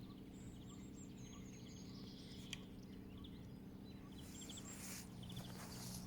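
Birds chirping and trilling in short repeated calls over a faint steady low hum, with a single sharp click about halfway through and two brief bursts of hiss in the last two seconds.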